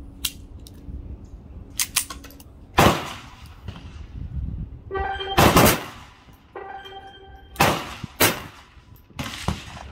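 Ruger Mark IV Tactical .22 LR pistol firing single shots: several sharp cracks a second or two apart, with fainter cracks between them. A ringing tone sounds twice in the middle.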